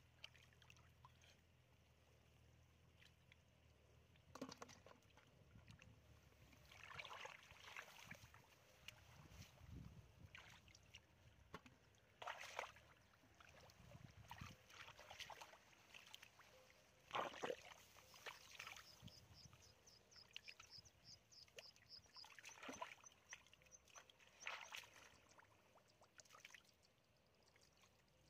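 Hands digging in wet mud and shallow water: quiet, scattered squelches and sloshes, with a louder splash about two-thirds of the way through.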